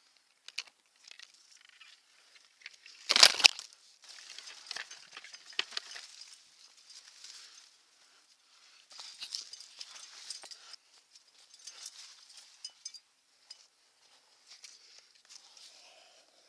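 Climbing gear on a harness (quickdraws and carabiners) clinking and jingling, with rustling clothing and hands and rock shoes scraping on limestone, all close to the microphone. About three seconds in comes one loud, brief scrape or rub against the microphone.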